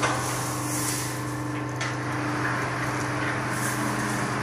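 Wire mesh fence panel welding machine running with a steady low electrical hum and a haze of machinery noise, with a brief click about two seconds in.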